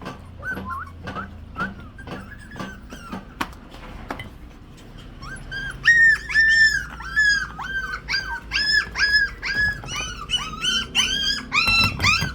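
Puppies whining and yelping for food: short, high-pitched cries, faint at first, then loud and coming several a second from about halfway through.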